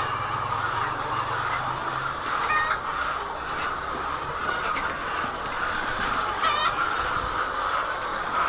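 A large flock of laying hens clucking and chattering together in a steady din, with a sharper call standing out twice.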